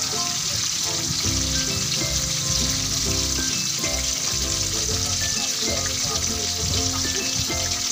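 Fish pieces frying in hot oil in a wok, a steady sizzle.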